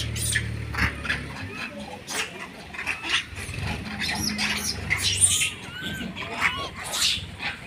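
A group of monkeys calling: many short squeaks and chirps that rise and fall, mixed with sharp, abrupt calls throughout.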